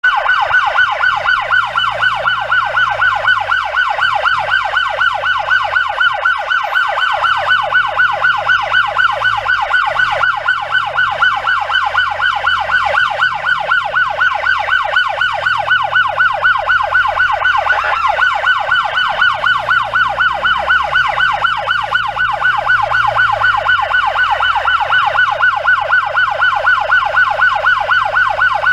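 Electronic ambulance siren in a fast yelp, its pitch sweeping up and down several times a second without a break.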